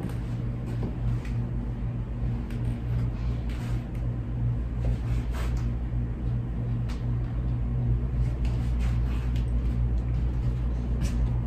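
A steady low hum, with faint scattered clicks and rustles of a person moving about.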